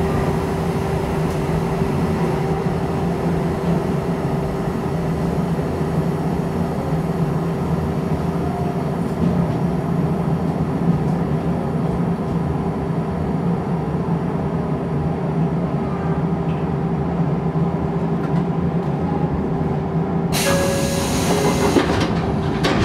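Shin-Keisei electric commuter train running along the track, heard from inside the front car: a steady rumble with a continuous tone over it. Near the end, a short loud burst of hiss-like noise lasts about a second and a half.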